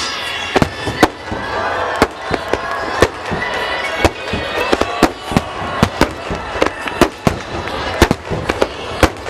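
Underwater fireworks bursting on the river in quick succession, sharp bangs about twice a second over the show's background music.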